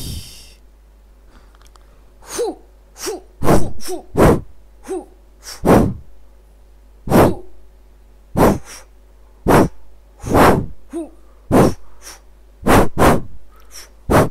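A man's short, forceful exhalations during kickboxing pad work, about fifteen in irregular succession, one with each kick or punch into the focus pads.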